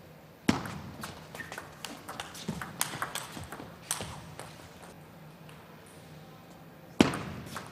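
Table tennis rally: the ball clicking sharply off bats and table at irregular intervals, with a loud hit about half a second in and another near the end.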